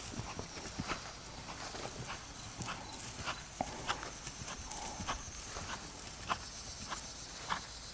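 A horse's hooves clip-clopping: sharp, uneven knocks about twice a second.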